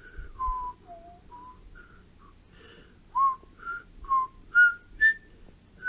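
Someone whistling a casual tune in short, separate notes, several with little slides in pitch, growing louder in the second half.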